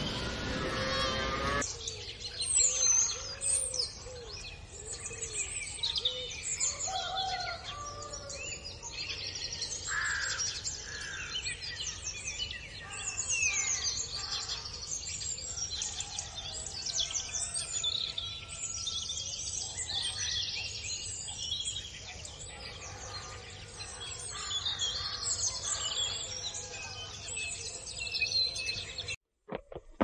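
A chorus of many songbirds chirping, trilling and calling at once. A cow's moo trails off about two seconds in, and the birdsong cuts off sharply just before the end.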